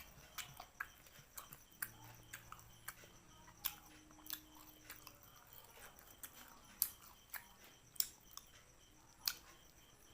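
A person chewing food close to the microphone: irregular wet clicks and smacks of the mouth, with three sharper, louder clicks in the second half.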